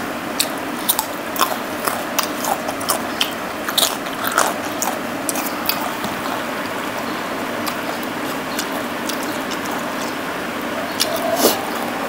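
Close-up chewing of a mouthful of raw cucumber: a run of crisp crunches over the first few seconds, then quieter chewing, with a few more crunches near the end.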